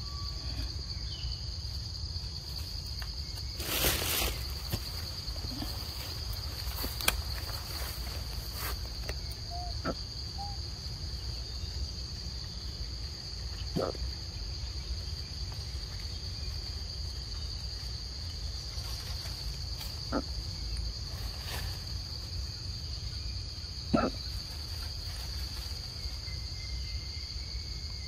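Steady high-pitched drone of insects, with a low rumble underneath. A few brief rustles and knocks break through, a longer one about four seconds in and a sharp one near the end.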